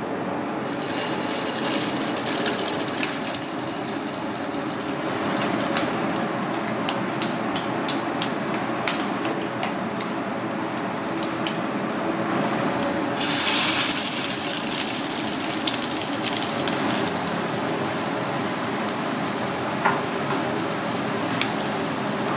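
Fish patties frying in a pan of oil: steady sizzling with scattered crackles, and a louder hiss about thirteen seconds in.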